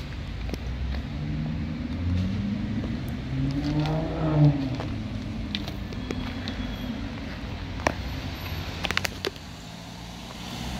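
A motor vehicle engine running, with a rise in pitch that peaks and cuts off about four and a half seconds in. A few sharp clicks come near the end.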